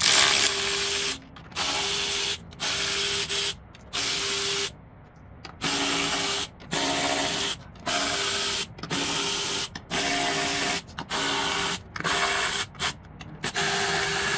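A power ratchet running in about a dozen short bursts of about a second each, hissing with a steady motor hum, as it spins bolts out of the intake plate.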